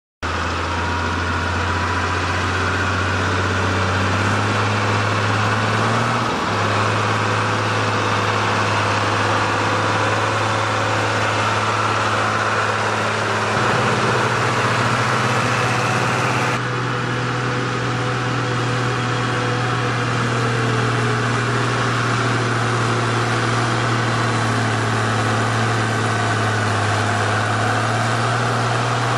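Case IH 956 XL tractor's six-cylinder diesel engine running steadily while pulling a trailer across a soft field, its note shifting slightly a few times.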